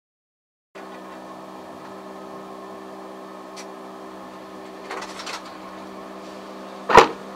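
Steady vehicle engine hum heard from inside the cabin while driving, with a few light clicks and one sharp knock about seven seconds in, the loudest sound.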